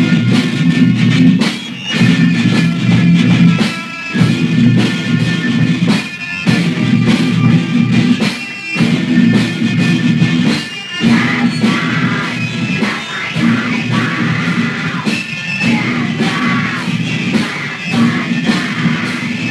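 Raw, rough hardcore punk demo recording of a band of drums, bass and electric guitar playing a riff. It plays in stop-start bursts, breaking off briefly every two seconds or so for the first half, then runs on more steadily.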